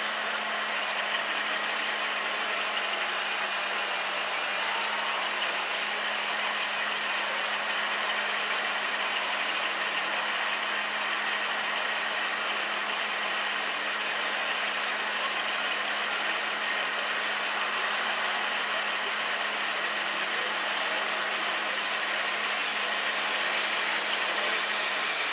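1/14-scale RC construction machine or truck running, with a steady engine-like idle and a constant low hum.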